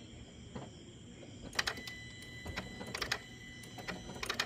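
A 2010 Buick Enclave in a no-start: irregular bursts of rapid clicking as the start is tried, with no engine cranking or running. A faint steady high tone sounds alongside the clicks.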